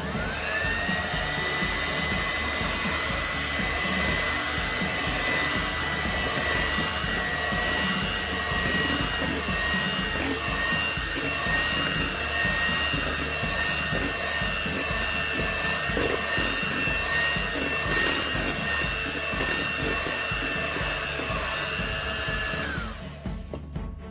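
Electric hand mixer starting up and running with a steady motor whine as its beaters work flour into thick banana cake batter in a stainless steel bowl. It is switched off about a second before the end.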